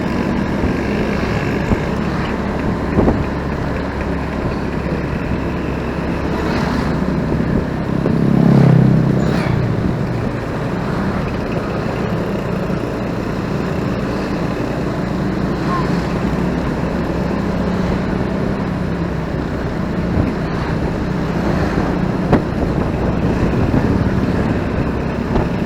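Riding sound from a moving motorcycle: its engine running steadily under wind and traffic noise, with a louder low swell about a third of the way in.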